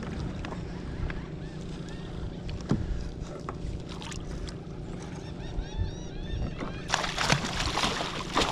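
Steady wind and water noise around a kayak, then near the end a loud splashing as a hooked flounder is scooped into a landing net beside the boat and thrashes at the surface.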